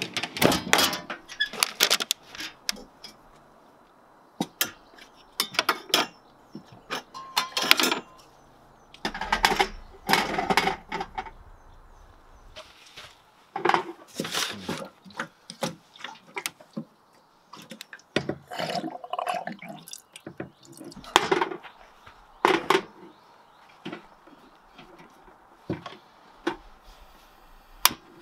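Camp-kitchen gear being handled: irregular metal knocks, clinks and clatter as aluminium storage boxes are opened and a saucepan is set on a camp stove.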